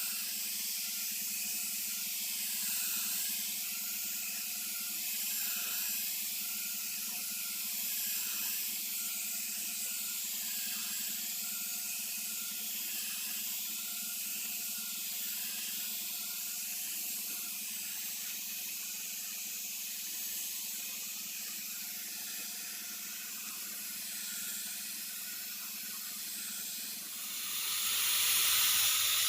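Steady spraying hiss over a low steady hum, growing clearly louder near the end.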